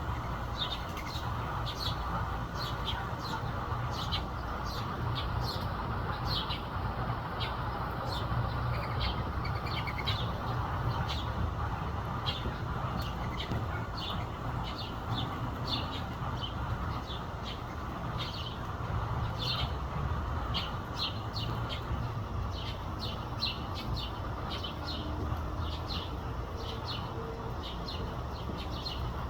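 House sparrows chirping, with short chirps coming again and again, often several a second, over a steady low background rumble.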